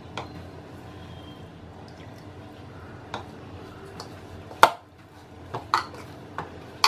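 Dough being kneaded by hand in a bowl: soft wet squishes of the dough with a few sharp knocks and clicks against the bowl, the loudest about four and a half seconds in and several more near the end.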